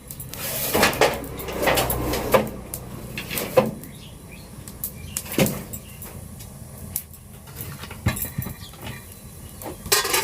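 Kitchen clatter: pots, pans and utensils knocking and scraping in an irregular run of short knocks, busiest in the first few seconds.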